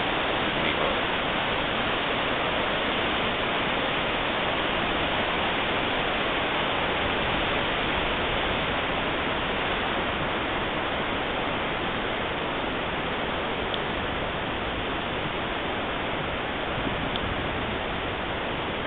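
Steady rushing noise of a waterfall and the fast white water below it.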